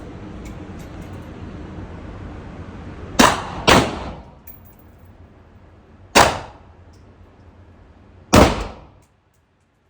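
Four gunshots: two about half a second apart roughly three seconds in, then single shots about six and eight seconds in, each a sharp crack with a short ring-off.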